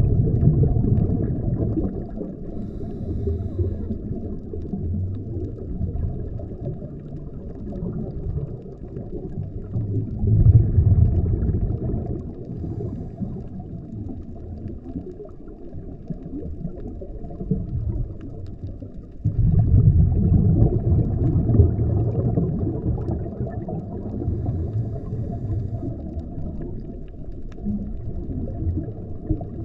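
Muffled underwater rumble of a scuba diver's exhaled regulator bubbles, swelling in long surges about every ten seconds.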